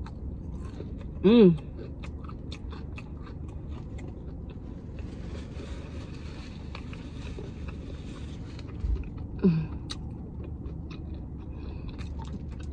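Close-up chewing and wet mouth clicks of a person eating fried chicken and fries. A short hummed voice sound about a second in is the loudest event, with a weaker one near 9.5 s. A paper napkin rustles in the middle.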